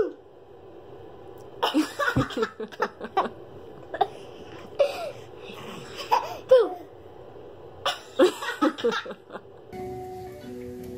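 A baby laughing in repeated short bursts of giggles. Light background music starts near the end.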